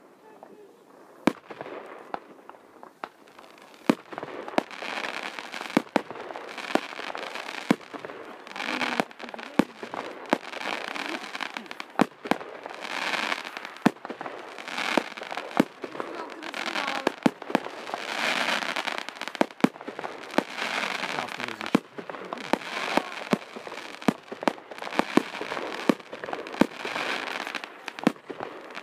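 Fireworks display: a string of sharp bangs from aerial shells bursting, with hissing and crackling from the effects between them. The bangs are sparse for the first few seconds, then come thick and fast.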